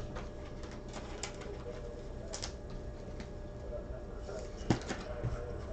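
Light clicks and taps of trading cards being handled, a few sharp ones about two and a half seconds in and near the end, over a steady low electrical hum.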